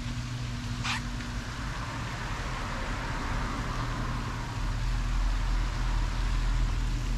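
Road traffic on a nearby street: a steady low hum with the hiss of passing tyres swelling in the middle, and one brief high chirp about a second in.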